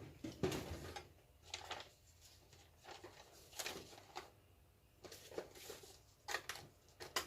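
Faint handling noises: a string of short rustles and light knocks as small objects are picked up and moved about by hand.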